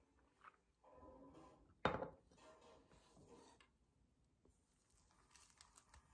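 Mostly near silence, with one sharp clatter about two seconds in and a few faint small clicks near the end.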